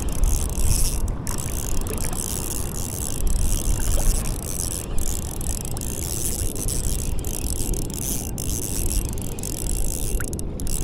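Steady wind rumble buffeting the action camera's microphone, with a continuous hiss over it.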